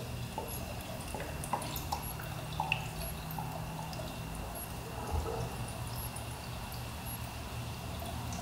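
Oil glugging and dripping in small irregular spurts as a bottle of oil drains into a two-stroke dirt bike engine's oil fill hole, over a steady low hum.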